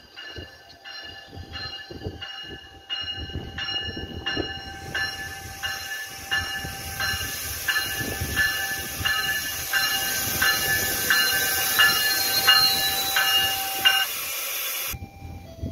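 GO Transit bilevel cab car arriving at a station platform, its bell ringing steadily about twice a second. From about five seconds in, a rushing hiss of wheels and running gear grows as the car draws alongside, and it cuts off abruptly near the end.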